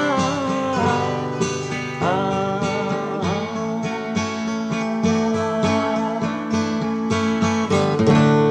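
Acoustic guitar strummed in a steady rhythm, playing the music of a song.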